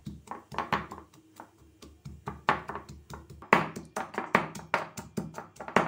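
Pestle pounding chopped garlic in a mortar: a string of dull knocks, growing quicker and louder about halfway through.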